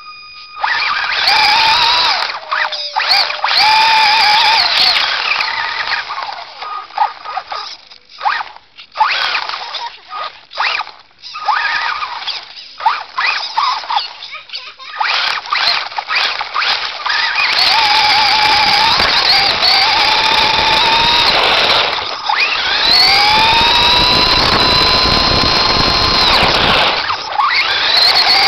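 Electric motor and gear drive of a Team Associated RC10T3 radio-controlled stadium truck whining, heard from on board the truck. It comes in short stop-start bursts at first, then longer steady runs. Twice near the end the whine cuts out and rises in pitch again as the truck accelerates.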